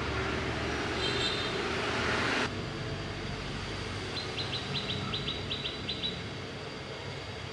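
A rushing noise grows louder for a couple of seconds, then cuts off abruptly. A few seconds later a bird gives a quick run of about ten short, high chirps, roughly five a second.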